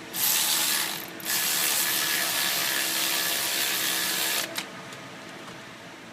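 A ratcheting tool spinning in two runs: a short one of about a second, then one of about three seconds.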